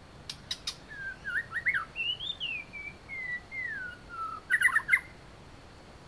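White-rumped shama singing: three sharp clicks, then a string of clear whistled notes that rise and fall in pitch, ending about five seconds in with a quick burst of clicking notes.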